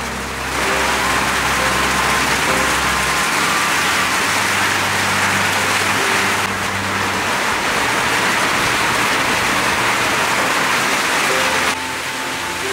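Heavy rain pouring down steadily on a pond and surrounding foliage, a loud even hiss. It cuts off abruptly near the end.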